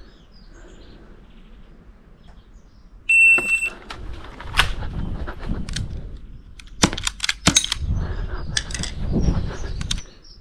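A single electronic start beep from the shot-timer app, held about half a second, then a quick string of airsoft pistol shots: about ten sharp cracks over six seconds, some in fast pairs.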